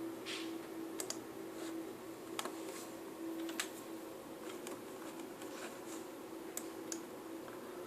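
Scattered sharp clicks from operating a computer, a dozen or so spread irregularly, over a steady low hum.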